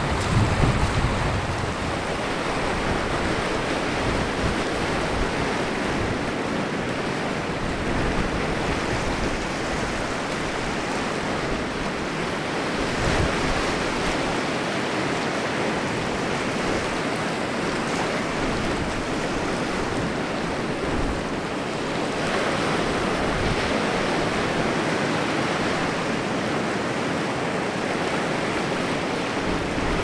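Sea waves washing on the shore in a steady rushing hiss that swells now and then, with wind buffeting the microphone.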